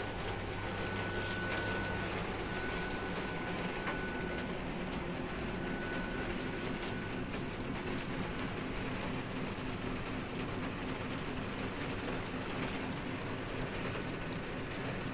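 Steady background hum and hiss, with a faint thin high tone that comes and goes in the first half.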